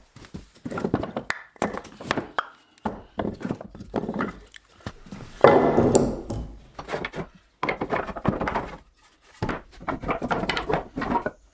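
Irregular wooden knocks and clatter as short logs are handled on a workbench and boards are shifted in a lumber rack, with the loudest knocks about six seconds in.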